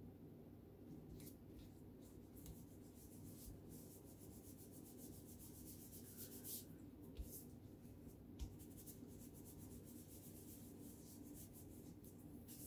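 Faint rustling and rubbing of hands pressing and smoothing glued paper cutouts flat onto a paper sheet, with two soft thumps a little past the middle.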